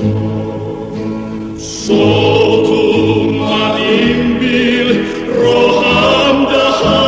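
A vocal group sings a Batak folk song in harmony from an old cassette recording. The singing grows louder and fuller about two seconds in.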